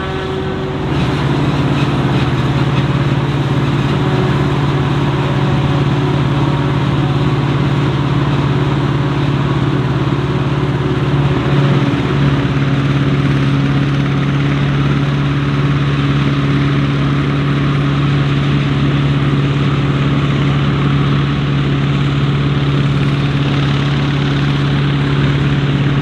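Heavy diesel engines of maize-harvest machinery running steadily at working revs: a constant loud drone with a dense mechanical rush over it.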